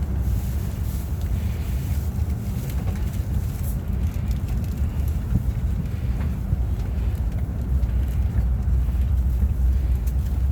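Steady low rumble inside the cabin of an E5 series Shinkansen as it pulls away from the station, growing a little louder near the end.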